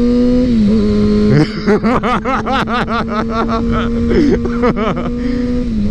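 A 2011 Kawasaki ZX-6R's 599 cc inline-four is running loud through a Two Brothers M2 slip-on exhaust while riding. It holds a steady note that dips about half a second in and again near the end. Through the middle, a rapid warbling sound rides over it.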